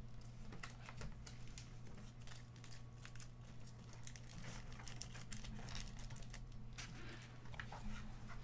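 Trading cards being handled at a table: faint, irregular rustling and soft clicks, over a steady low electrical hum.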